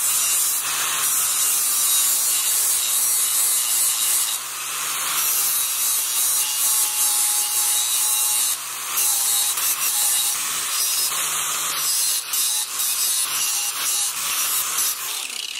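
A 4.5-inch angle grinder with a flap disc grinding the cutting edge of a steel lawn mower blade to sharpen it, its motor running steadily. The grinding hiss shifts briefly a few times as the disc is swiped along the length of the edge in repeated passes.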